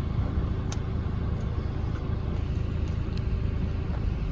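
Steady low rumble of a slow-moving car, heard from inside the cabin, with a faint click or two.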